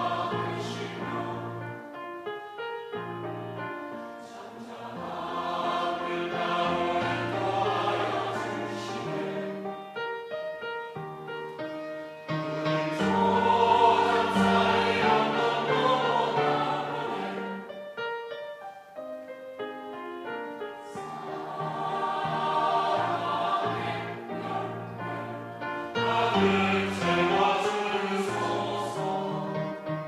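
Mixed church choir of men's and women's voices singing a sacred anthem in sustained chords, phrase by phrase, swelling loudest about halfway through.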